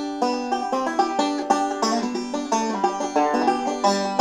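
Outro music: a quick run of plucked string notes, played brightly and steadily.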